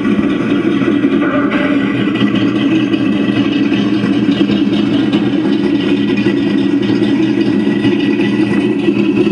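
Sound module of a 1/6-scale mahogany Riva model speedboat playing a recorded boat engine at idle through its onboard speaker: a loud, steady engine hum.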